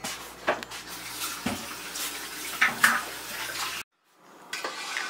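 Kitchen clatter: dishes and utensils clinking over a steady rushing, water-like noise. It cuts off suddenly a little under four seconds in, then resumes about half a second later.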